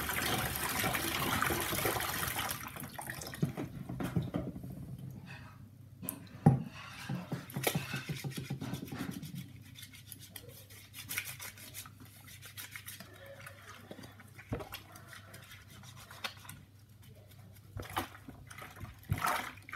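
Water running into a small stainless steel sink for the first couple of seconds, then washing-up by hand in soapy water: splashing, sloshing and the odd clink of dishes, with a sharp knock about six seconds in.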